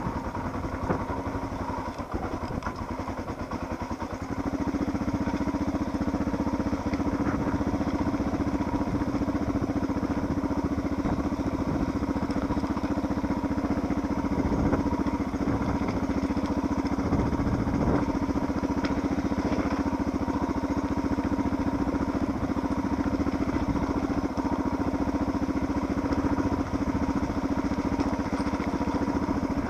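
Suzuki DR650's single-cylinder four-stroke engine running as the bike is ridden along a rocky dirt track. It picks up revs and gets louder about four seconds in, then holds steady, with a few brief knocks partway through.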